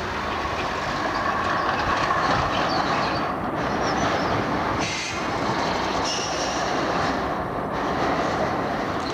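Amsterdam GVB tram passing close by, its steel wheels rumbling on the street rails, with a brief high wheel squeal about four seconds in and again around six seconds.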